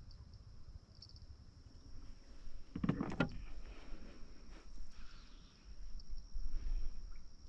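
Night insects chirping in a steady high drone over a low rumble, with a brief knocking clatter about three seconds in, the loudest sound.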